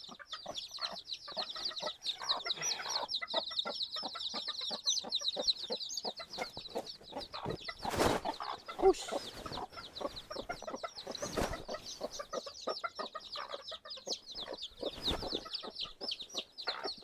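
A flock of chickens clucking continuously, many short calls overlapping, over a dense high-pitched chirping. A few brief rustling bursts come about halfway through and again later.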